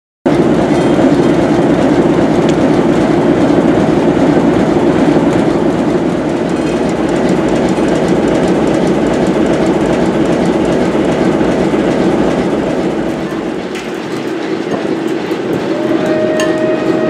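British Rail Class 08 diesel shunter's English Electric six-cylinder engine running steadily, a dense low hum with a strong steady drone.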